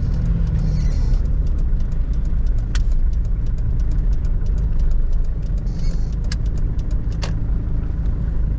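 Steady low in-cabin drone of a 1997 Toyota Hilux's 3.0-litre 5L four-cylinder diesel, with scattered sharp ticks over it.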